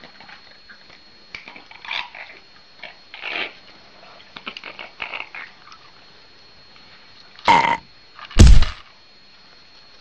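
Amazon parrot making a string of short calls and chatter, then two loud calls near the end, the second the loudest and deepest.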